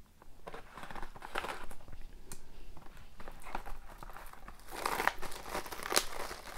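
Plastic shrink wrap crinkling and tearing as it is peeled off a cardboard box of trading cards, in irregular crackles that get louder about five seconds in.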